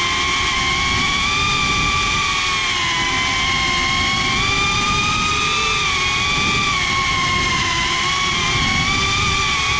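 FPV quadcopter's motors and propellers whining steadily as it flies, the pitch wavering slightly with the throttle. A rough wind rumble runs underneath.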